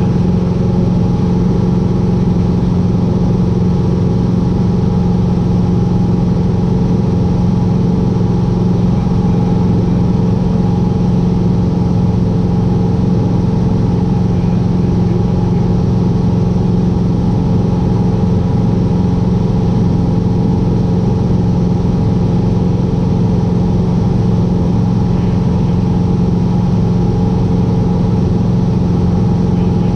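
Cessna 150's Continental O-200 four-cylinder engine and propeller droning steadily in flight, heard from inside the cockpit.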